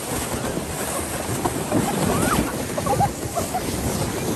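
Steady rushing and buffeting of wind on the microphone, a dense noise with a low rumble, with a few faint, short voice-like yelps around two to three seconds in.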